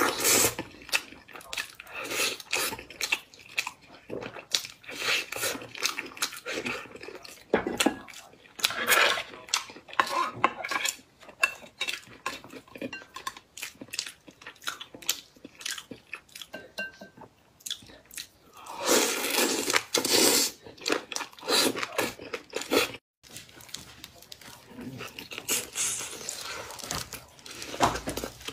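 Close-miked eating sounds: meat being bitten off the bone and chewed wetly, in quick irregular smacks and crunches, with chopsticks clicking against the dishes.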